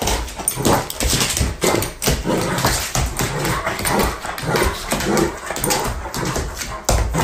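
Great Dane whining and vocalizing while it prances around, with many quick knocks of its paws and nails on a hardwood floor.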